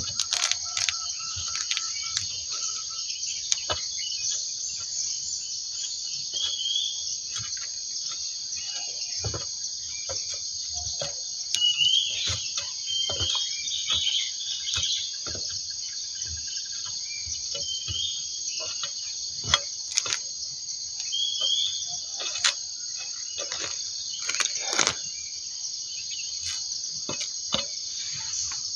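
Insects chirring steadily and high, with scattered short knocks and scrapes from a sickle blade worked against durian husks. The loudest knocks come about 12, 20 and 25 seconds in.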